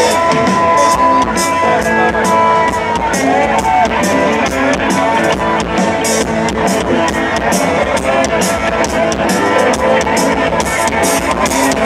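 Rock band playing live on electric guitars, bass guitar and drum kit, with cymbal strokes repeating.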